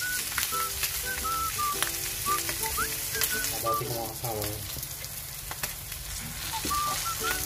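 Pork steaks and minced garlic sizzling in hot oil in a nonstick frying pan, with a spatula stirring and scraping the garlic. About four seconds in, sliced onion rings are tipped in from a cutting board. Background music plays over it.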